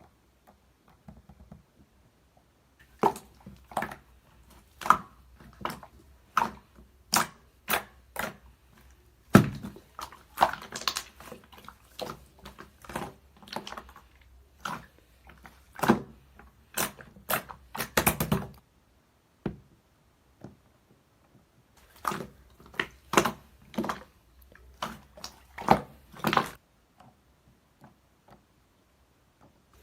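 Irregular sharp taps and knocks, one or two a second, in a small room, pausing briefly in the middle and falling quiet near the end.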